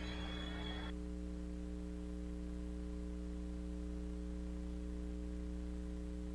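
Steady electrical mains hum, made of several fixed tones, with a faint background hiss that stops about a second in.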